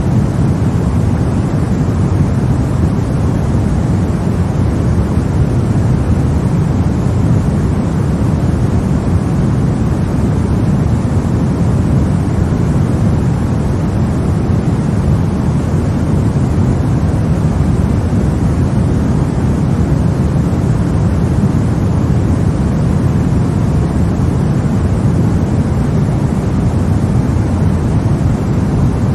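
Steady, unbroken sleep noise for babies: an even, deep rush weighted toward the low end, with no changes or separate sounds in it.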